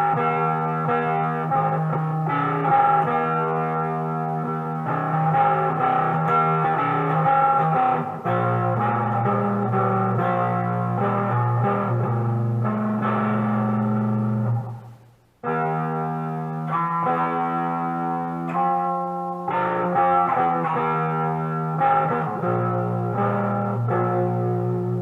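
Monoprice Mini Cali electric guitar played through a heavily distorted, overdriven setting, ringing chords and short riffs. The sound cuts out briefly about fifteen seconds in, then the playing picks up again.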